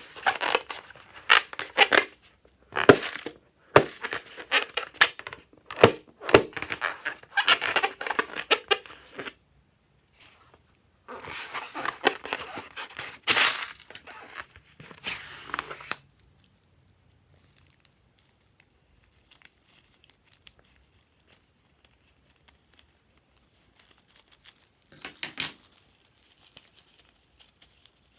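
Crackling, tearing sounds of a slime-filled balloon being handled and opened, coming in dense bursts through the first half, then only faint scattered clicks and one short burst near the end.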